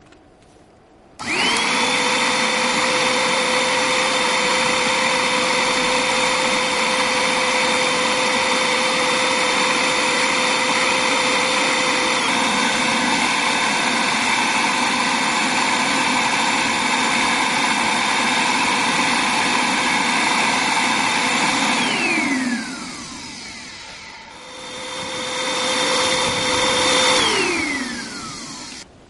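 An electric motor with a steady whine, switched on abruptly and run for about twenty seconds, then switched off and winding down in pitch. It is run again for a few seconds and winds down again near the end.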